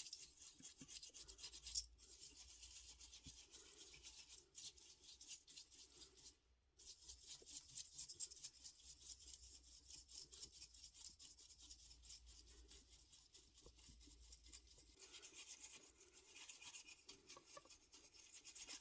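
Faint, fast back-and-forth rubbing strokes on a small model-car part, as in scrubbing or sanding, pausing briefly about two, four and a half and six and a half seconds in.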